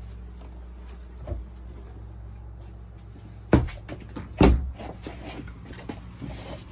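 Two hard knocks about a second apart, like a door in the van's interior being pushed shut, followed by several lighter clicks and taps, over a steady low hum.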